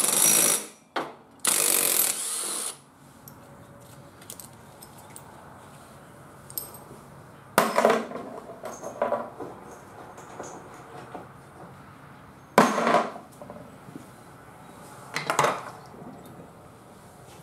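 Cordless power driver run in two bursts of about a second each at the start, backing the fastener out of the tractor's rear wheel hub. Later come three separate clunks with a short clatter, as the wheel and loose parts are handled.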